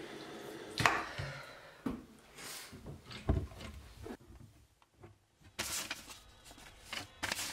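Bathroom sink tap running, then shut off with a sharp knock a little under a second in. Several light knocks and footfalls follow, then a cabinet door is pulled open with a short scrape and a few clicks near the end.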